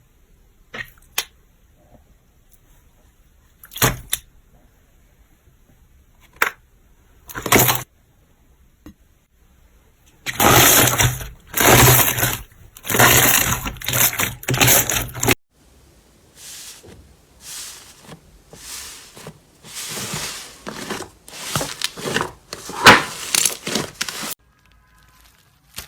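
Slime being squeezed and pressed by hand in separate clips: a few sharp isolated pops, then about five seconds of loud, dense crackling that cuts off suddenly, then a longer, softer run of repeated squishing and crackling strokes.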